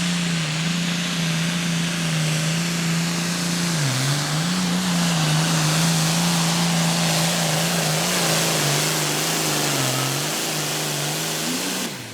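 Two-wheel-drive pulling truck's engine running flat out under load during a pull, its note held high and steady with a few brief dips in pitch. The sound drops off sharply just before the end.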